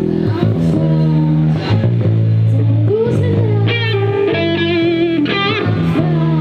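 Live rock band: electric bass and electric guitar playing held notes with drum hits, and a woman singing with vibrato from a little past halfway.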